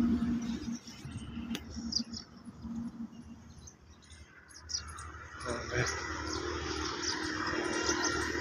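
Small birds chirping in short high notes. From about halfway in, a vehicle engine comes in and runs steadily as it passes.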